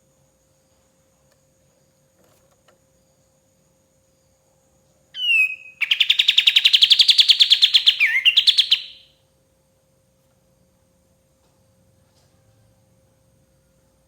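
A kapas tembak songbird gives one loud burst of song about five seconds in: a few quick sliding opening notes, then a fast, even trill lasting about three seconds.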